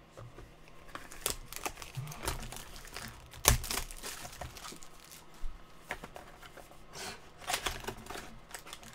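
Plastic wrapping of a Topps Museum Collection trading-card pack crinkling and tearing as it is pulled open by hand, with one sharp snap about three and a half seconds in.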